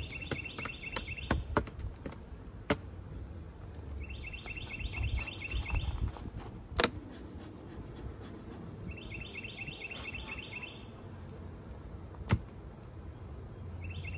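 A songbird singing a short trilled phrase, repeated about every five seconds, over a low rumble, with a few sharp clicks and knocks.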